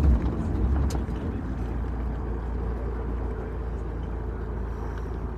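A car's engine idling with a steady low hum, heard from inside the open cockpit; a louder engine sound fades away in the first second.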